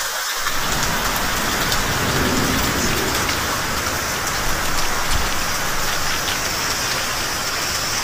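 Steady rain pouring down on the yard and roofs, with a low rumble underneath.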